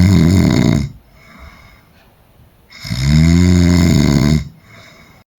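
Dog snoring loudly in a slow rhythm. One long snore ends just after the start, then comes a soft breath out. A second loud snore of about two seconds begins nearly three seconds in and is followed by another soft breath.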